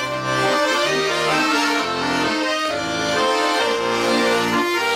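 Accordion playing an instrumental passage of a Russian folk song: a melody with chords over a steady bass line.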